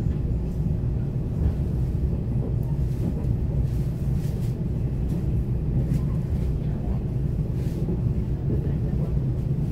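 Running noise of a moving electric passenger train heard inside the cabin: a steady low rumble of wheels on rail with a faint steady hum.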